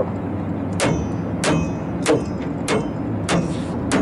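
Car turn-signal indicator ticking steadily, about one and a half ticks a second, over the low engine and road rumble inside a moving vehicle's cabin.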